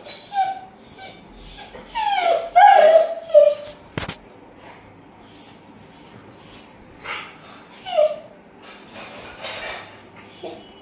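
Rottweiler whining excitedly in repeated high-pitched cries, with a louder run of falling whines about two to three seconds in. A single sharp click sounds about four seconds in.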